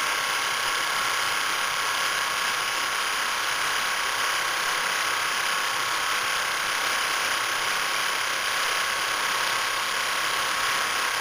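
Two-needle industrial quilting machine with a Pfaff sewing head running, stitching with a steady, even mechanical whir.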